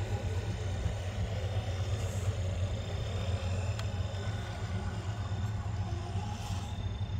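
Electric RC rock crawler on a Power Hobby 10.2 chassis, running on 4S, climbing a near-vertical boulder face and cresting the top: its motor and drivetrain run steadily over a constant low rumble.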